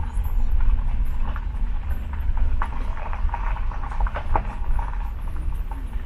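Car driving slowly, heard from inside the cabin: a steady low road rumble and buffeting, with irregular light clicks and knocks from the tyres and body.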